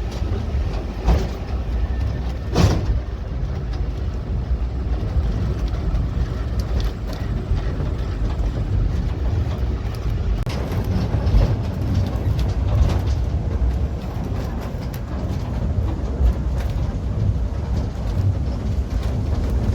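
Steady low roar of a tall waterfall, with a couple of brief knocks about one and two and a half seconds in.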